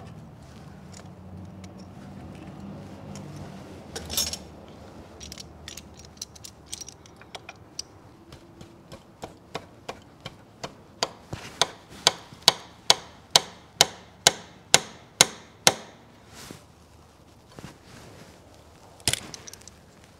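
Hand tools on the front crankshaft seal of a CAT C15 diesel engine: scattered light metal clinks, a louder clank about four seconds in, then a run of sharp metal taps, about three a second for some seven seconds and growing louder, and one more clank near the end.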